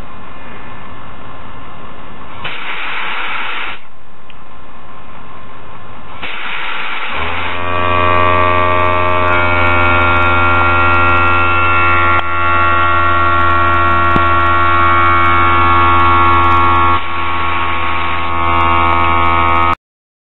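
Two short hissing blasts of compressed air from a servo-triggered air nozzle, a few seconds apart. From about seven seconds in, a loud steady machine hum with a pitched drone takes over and then stops abruptly near the end.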